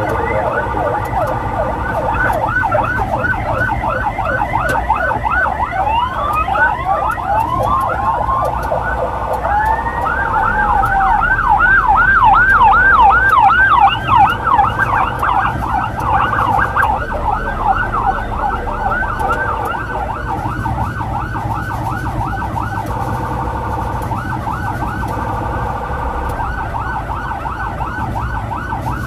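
Electronic emergency siren in a fast yelp, quick rising sweeps about three or four a second; between about six and ten seconds in, a second siren with a slower, uneven sweep overlaps it. A motorcycle engine runs low underneath.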